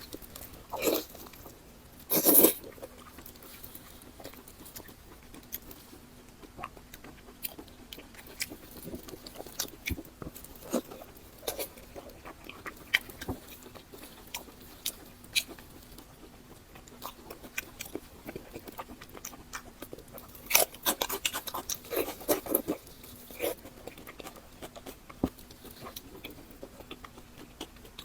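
Close-miked chewing and biting: wet, crunchy mouth sounds and scattered clicks, with louder bites near the start and again about two-thirds of the way through.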